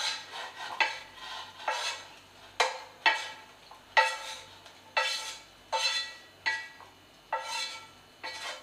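A spatula knocking and scraping against a frying pan about once a second, each knock with a short metallic ring, as boiled spinach is scraped out of the pan into a blender jar.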